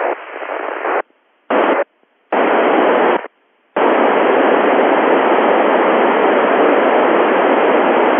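FM receiver hiss from an Icom IC-9700 tuned to the ISS voice repeater downlink, with no voice on it, cutting in and out as the squelch opens and shuts. There are three short bursts with silent gaps between them, then a steady hiss from about four seconds in.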